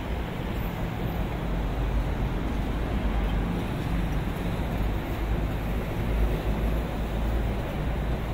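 Steady city street traffic noise: passing vehicles with a constant deep engine rumble.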